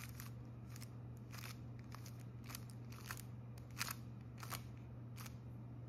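Stickerless 3x3 speed cube being turned through a Z-perm algorithm (M2 U' M2 U' M' U2 M2 U2 M'), its plastic layers giving about ten faint, irregular clicks as the slices and top face are turned.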